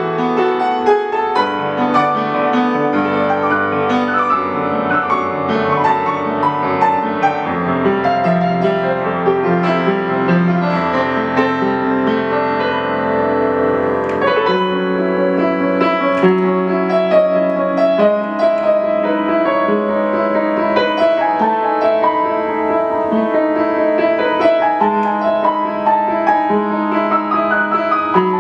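Solo piano music: a slow, flowing melody over sustained chords. A new low chord comes in about halfway through.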